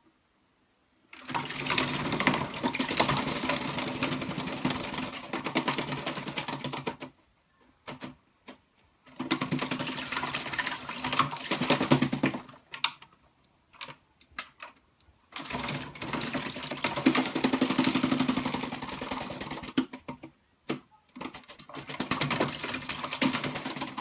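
Black-capped lory bathing in a water bowl, beating its wings in the water in four bouts of rapid splashing and fluttering, each a few seconds long, with short pauses between.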